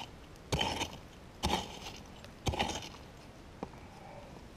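A digging pick striking hard ground three times, about a second apart, each a short sharp blow, while digging out a metal-detector target.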